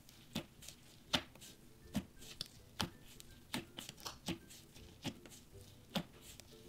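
Fingers poking and pressing thick blue slime in a plastic tub, making sharp sticky pops and clicks about once every second.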